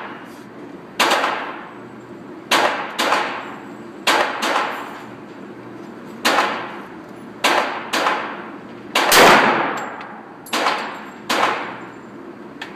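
Handgun shots: about eleven sharp reports at an uneven pace, each trailing off in a short echo. One about nine seconds in is louder and deeper than the rest.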